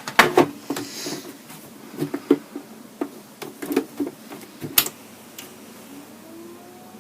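Clicks and knocks of hands handling the Commodore 1541 disk drive's case and fan bracket while refitting them, busiest in the first five seconds. Near the end a faint tone rises slowly in pitch.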